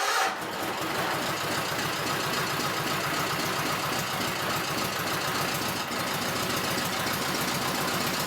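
Rebuilt Kohler KT17 Series 2 air-cooled twin-cylinder engine in a John Deere 317 garden tractor running steadily, with an even beat of firing pulses. It is running very rich, with its carburetor's idle and mixture needles not yet adjusted.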